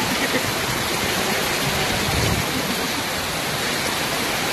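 Heavy rain pouring down onto a flooded street: a steady hiss of rain mixed with the rush of floodwater running over the road.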